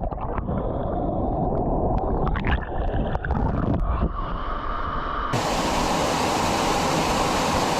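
Steady rush of a waterfall, muffled with a few knocks for the first five seconds, then suddenly full and clear.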